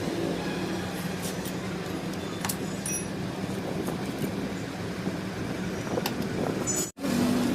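Steady low mechanical hum with vehicle and traffic-like noise, and a few light clicks. The sound cuts out abruptly for a moment near the end.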